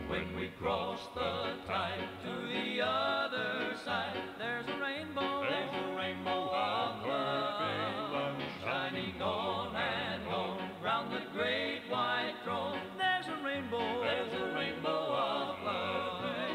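Country gospel song played back from a 1983 cassette tape: voices singing with a wavering vibrato over instrumental backing.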